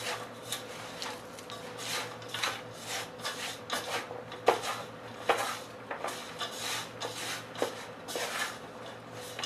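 A hand squeezes and mixes sliced onions with gram flour in a metal pot, making ulli vada batter. It gives a run of rustling, rubbing strokes at about two a second, with a few sharper knocks against the pot.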